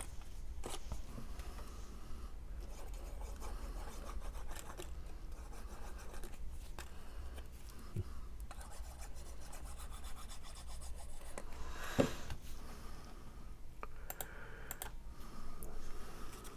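Cardstock pieces rubbing and scraping as they are handled and pressed into place on a box card, with a couple of soft taps about halfway through.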